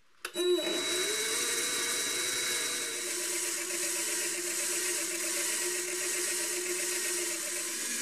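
Benchtop metal lathe switched on with a click, its motor spinning up over about half a second and then running steadily with a whine while the tool cuts the spinning bar. The tone drops a little near the end.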